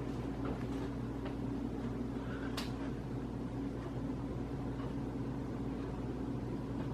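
Casablanca Hampshire ceiling fan running in its forward direction with a steady hum and grinding sound that has developed over years of use, its cause unknown to the owner. One faint tick about two and a half seconds in.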